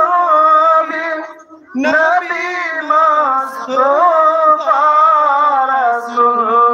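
A man singing a naat, an Islamic devotional song, unaccompanied into a microphone, holding long wavering notes. There is a short pause for breath between phrases a little over a second in.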